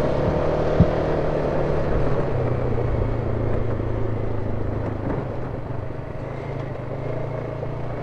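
Off-road vehicle engine running steadily while riding a dirt trail, its pitch dropping slightly a little over two seconds in, with a single click about a second in.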